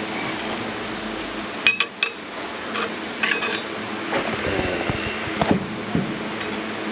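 Small porcelain coffee cups and saucers clinking, with a brass coffee pot handled on a stone tabletop. Several sharp, ringing clinks come close together in the first half, then softer knocks.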